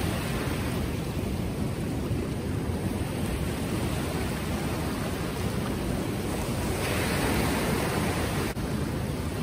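Choppy river water lapping and breaking along the shore in a steady wash, swelling briefly about seven seconds in. Wind rumbles on the microphone.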